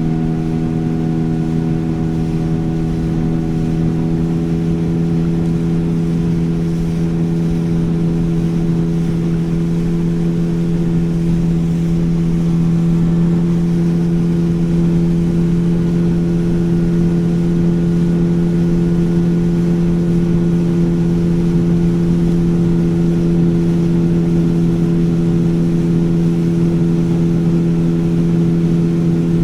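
Motorboat engine running at a steady pitch, growing slightly louder over the first dozen seconds, over a steady rushing noise.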